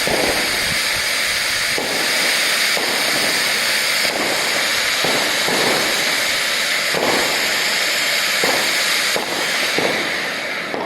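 Fireworks going off: a continuous dense hiss and crackle with repeated sudden shots about every second, easing off near the end.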